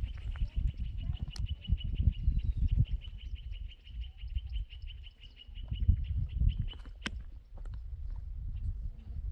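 Wind buffeting the microphone in gusts, with a small creature's high, fast, even trill held at one pitch until it stops about seven seconds in. A couple of sharp clicks sound over it.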